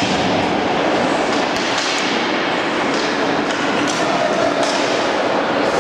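Ice hockey rink sound during play: a steady hiss of noise with faint voices in the arena, broken by several sharp clicks and knocks of sticks and puck.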